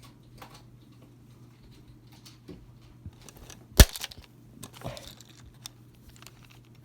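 Scattered small clicks and handling noises, with one sharp knock a little under four seconds in, over a steady low hum.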